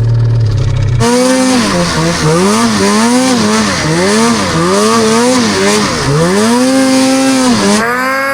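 Ski-Doo snowmobile engine being ridden uphill, its pitch rising and falling over and over as the throttle is worked, with steady hiss over it. It runs at a low steady hum for the first second, and the revs ease off near the end.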